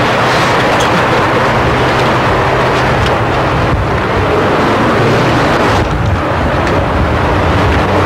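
Loud, steady road traffic noise with a low engine hum.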